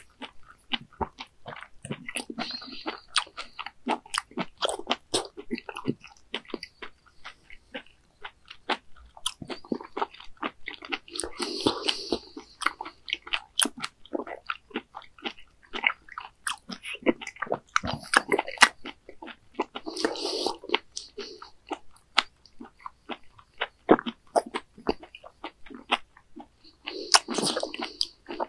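A person chewing raw baby squid sashimi: a steady stream of short, wet mouth clicks and smacks, with a few louder spells of chewing roughly every eight seconds.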